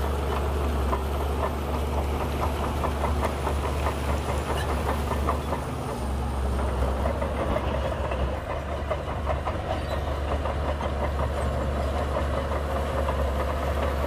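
Shantui crawler bulldozer's diesel engine running under load with a steady low drone, over a dense, fast clatter from its tracks, dipping slightly in level about two thirds of the way through.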